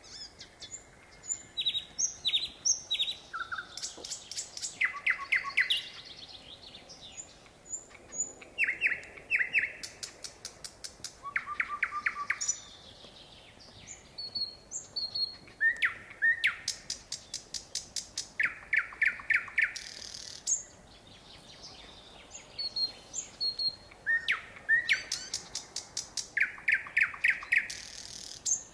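A nightingale singing: loud, separate song phrases a few seconds apart, each a fast run of repeated notes, some rapid sharp clicking rattles, some clear whistles, with short pauses between phrases.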